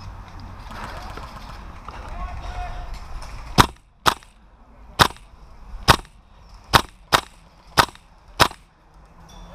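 Airsoft rifle firing eight single shots at uneven intervals, starting a little over a third of the way in, each a short sharp snap. Before the shots, rustling as the player shifts position and brings the rifle up.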